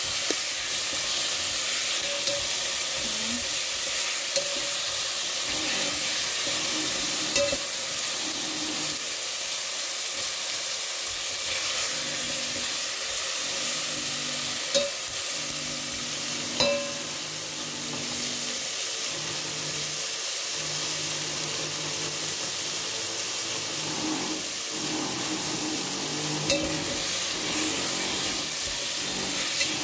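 Tomato wedges and shallots sizzling steadily in hot oil in a pot, with tongs turning them and clicking against the pot a few times.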